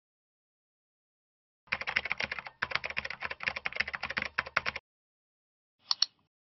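Computer keyboard typing: a quick run of keystrokes lasting about three seconds, then a single mouse click near the end.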